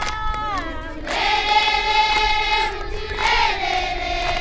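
A group of voices singing without accompaniment: long held high notes, with a falling glide about half a second in. A few sharp clicks fall between the notes.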